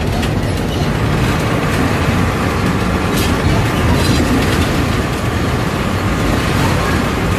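Old bus driving on a rough dirt road, heard from the driver's cab: the engine runs steadily under a loud, even rattle of the body and windows, with two sharp clicks about three and four seconds in.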